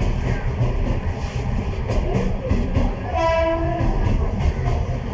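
A train passing close by on the tracks, a steady rumble with a regular wheel clatter, and a short horn blast about three seconds in.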